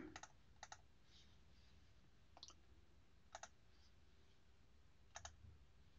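Faint computer mouse clicks, about five of them a second or so apart, some in quick press-and-release pairs, over near silence.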